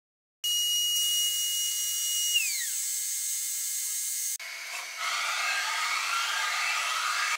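CNC router's high-speed 2.2 kW spindle running with a high-pitched whine that starts about half a second in, then slides down in pitch a couple of seconds later. About four seconds in it gives way to a rougher, hissing whir of the machine working the brass.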